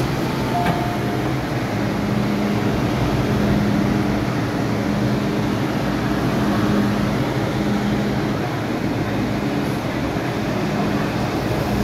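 Steady hum and rumble of an MTR M-Train standing at the platform, with a low drone that fades in and out.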